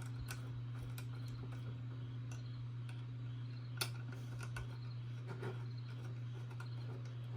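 Small screws being tightened into a robot kit by hand with a screwdriver: faint scattered ticks and clicks, with one sharper click a little under four seconds in, over a steady low hum.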